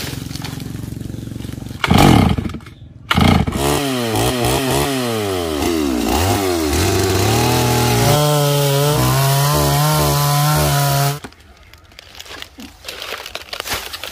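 Gasoline chainsaw revving up and down several times, then held at a steady high speed as its bar cuts into a fallen palm trunk. It cuts off suddenly about eleven seconds in, leaving quieter knocks and rustling.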